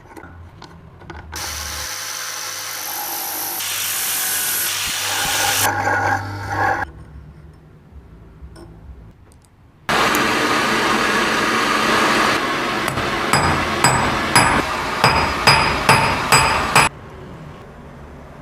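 A power tool working metal runs steadily for about five seconds, then stops. After a short pause more machine noise starts, joined near the end by a quick run of sharp, ringing metal strikes, about two or three a second.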